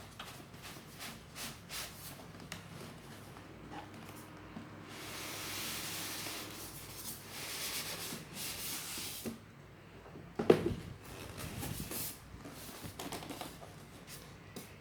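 Packaging being handled while a coffee grinder is unboxed: scattered rustling, rubbing and light clicks. A steadier rubbing noise lasts about two and a half seconds from about five seconds in, and a single sharp knock, the loudest sound, comes about ten and a half seconds in.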